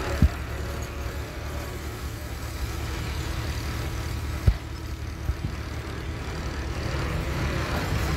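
Steady low rumble of a motor vehicle engine running. Three sharp knocks cut through it, the loudest about four and a half seconds in.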